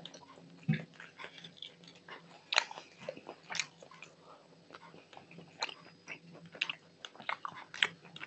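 Close-up mouth sounds of eating rice and curry by hand: wet chewing and lip smacks in sharp, irregular clicks, about one every second or so.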